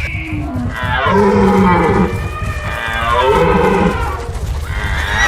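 Cow mooing twice, each call about a second long, over a steady low rumble.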